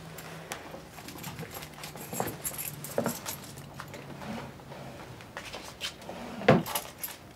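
Rustling and light clicks of things being handled and rummaged at a bedside nightstand, with one sharp knock about six and a half seconds in.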